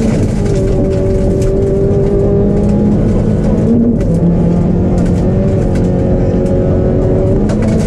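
N3-class rally car engine at high revs, heard from inside the cabin. The engine note drops sharply with an upshift about four seconds in, then climbs again, over steady road and tyre noise.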